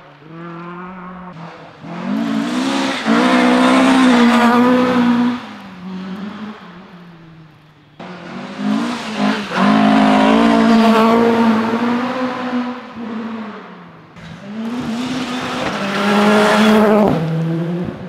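Rally cars passing at speed on a gravel stage, three loud passes one after another, engines revving hard with the pitch rising and falling.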